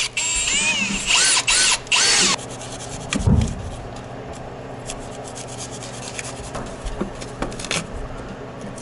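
Cordless drill boring through a rim board and foam-cored SIP wall with a hole saw, its motor speeding up and slowing in short pulses, stopping about two seconds in. Then a single low thump and faint clicks and scrapes as hands work at the cut plug in the hole.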